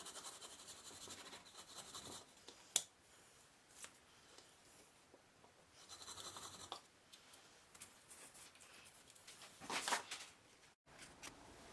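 Faint scratching and rubbing of hand work at a workbench, with a sharp tap about three seconds in and a louder scrape near the end.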